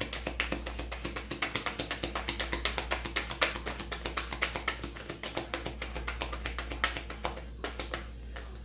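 Tarot cards being shuffled by hand: a rapid run of light clicks and taps, several a second, stopping near the end, over soft background music.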